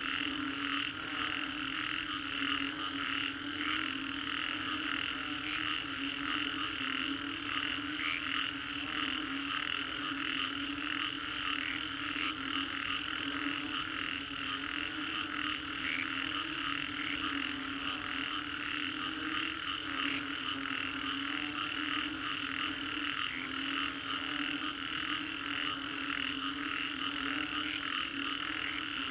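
A dense chorus of many frogs calling after rain, continuous and unbroken. A low, steady layer of calls runs beneath a higher layer of many rapid, overlapping pulsed calls.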